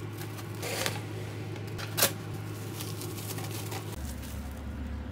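Plastic cling wrap crinkling and rustling as a stuffed baguette is wrapped and handled, with two louder crackles about one and two seconds in.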